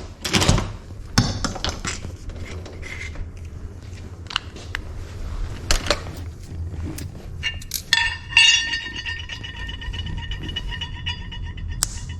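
Metal clinks and knocks of a locksmith's tools against door-lock hardware as the lock is taken off. From about 8 s in, a steady, rapidly pulsing tone comes in under the clinks.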